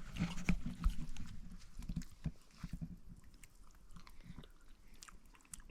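A person chewing a mouthful of bison and vegetable stew, with low appreciative "mmm" hums and wet mouth clicks over the first couple of seconds, then quieter chewing.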